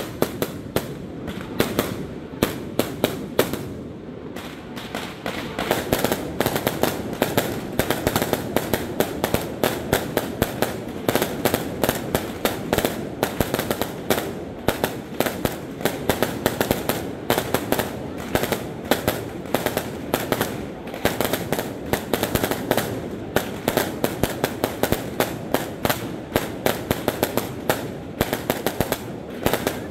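Aerial fireworks display: a rapid, continuous barrage of bangs and crackling, growing denser and louder about six seconds in.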